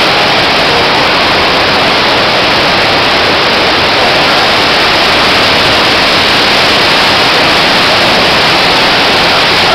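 Theme-park flood effect: a huge torrent of water pouring and splashing alongside the tram, heard as a loud, steady rush.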